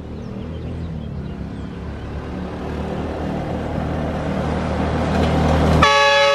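A small vehicle's engine running, growing steadily louder. Near the end it cuts off and a homemade air horn powered by a Dewalt 20V drill battery and compressor blasts a loud chord of several tones at once.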